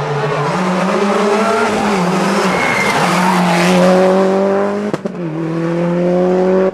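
Rally car engine revving hard as the car accelerates out of a tight bend, pitch climbing through the gears, with a brief tyre squeal about two and a half seconds in. The sound breaks off about five seconds in, and a car is heard accelerating again with rising revs.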